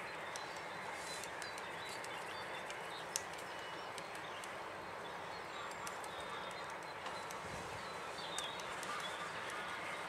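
Irregular sharp taps of a great spotted woodpecker pecking at peanuts in a wire-mesh feeder, over a steady background hiss; one tap about three seconds in is the loudest.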